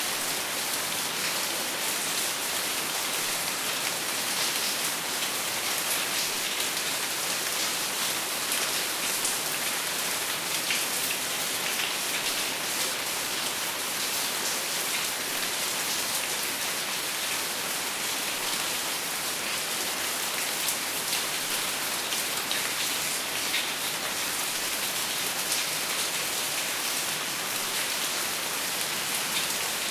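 Hail and rain falling on a metal roof: a dense, steady patter with many sharp ticks scattered through it.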